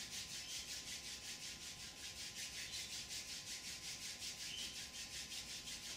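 Two palms rubbed together, skin on skin: a steady, even swishing of about five strokes a second.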